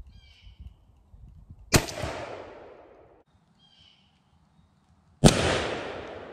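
Two 20-gauge shotgun reports from a Stevens 301 single-shot firing 3-inch Winchester Double X turkey loads, about three and a half seconds apart. Each is a sharp crack followed by a long rolling echo that slowly dies away.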